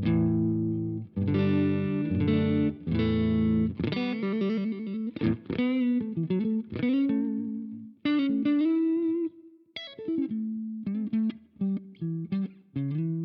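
Electric guitar played through an iSet Dumbler, a Dumble-style overdrive pedal, with mild crunch. A few held, ringing chords come first, then single-note lead phrases with bent and wavering notes from about four seconds in.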